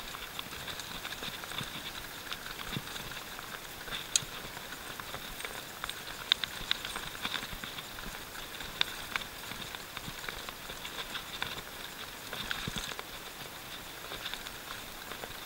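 Canyon Nerve mountain bike descending a rough dirt trail: irregular sharp clicks and rattles as it goes over bumps, over a steady hiss of tyres and wind.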